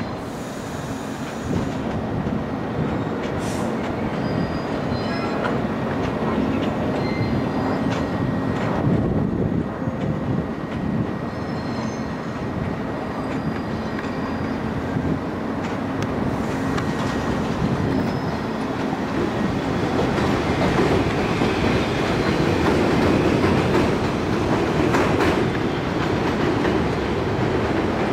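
New York City subway train running on steel rails: a steady rumble with the clickety-clack of wheels and faint, thin wheel squeal coming and going. It gets a little louder in the second half.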